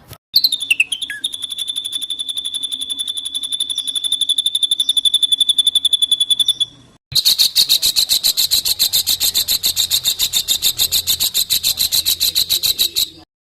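An African songbird's rapid rattling trill song: two long, fast-pulsed trills on a high steady note. The first opens with a few short falling notes, and each stops abruptly.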